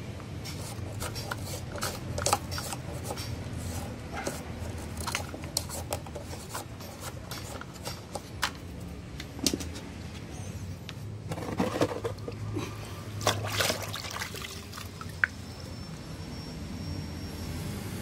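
Irregular clicks, knocks and scrapes of hands working plastic and rubber parts of a washing machine's drain valve, over a low steady hum.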